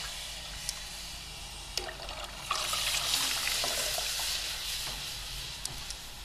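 Lassi (thinned yogurt) pouring in a steady stream into a steel pot of liquid kadhi mixture, a continuous splashing trickle that eases off a little near the end. A few faint clicks sound over it.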